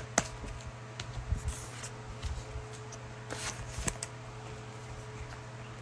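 2021 Mosaic football trading cards being handled and slid against one another, with light scattered clicks and rustles, over a faint steady low hum.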